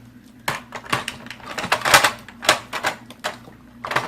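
Hard plastic parts of a Dyson Ball Animal 2 upright vacuum clacking and knocking together as they are handled and slid into place, an irregular series of sharp clicks.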